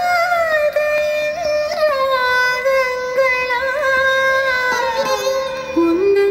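A Malayalam film song played from a vinyl LP record on a turntable. It carries a long, ornamented Carnatic-style sung melody line, held and sliding, which drifts downward and settles on a lower note near the end.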